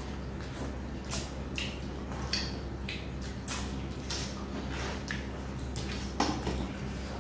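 Hand-eating sounds: fingers squishing and kneading rice with dal and mashed potato on steel plates, with wet mouth smacks from chewing, in irregular short clicks. The sharpest smack comes about six seconds in.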